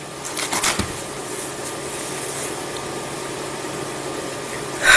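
A woman crying: sniffles and shaky breaths about half a second in, and a sharp sniff at the very end, over a steady background hiss.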